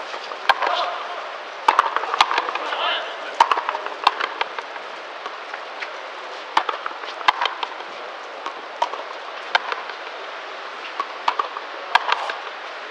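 Frontenis rally: sharp cracks of the rubber ball off strung rackets and the fronton's front wall, one after another at irregular gaps of about half a second to a second.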